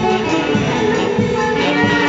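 Band music from a Mantaro-valley orquesta típica: sustained wind-instrument melody lines over a steady rhythmic accompaniment.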